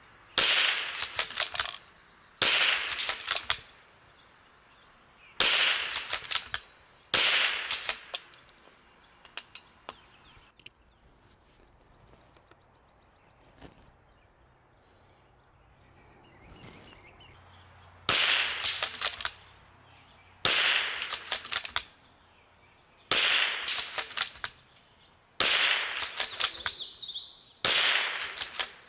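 .22LR bolt-action rifle firing match rimfire ammunition, single sharp shots that each ring out for about a second. Four shots come 2 to 3 s apart, then a pause of about ten seconds, then a second string of five shots about two and a half seconds apart.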